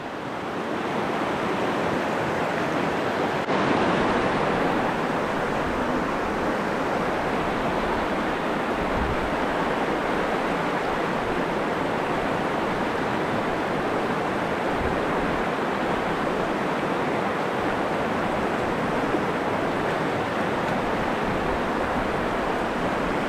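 Steady rush of a mountain river's rapid, a constant even noise of fast-flowing water that gets a little louder about three and a half seconds in.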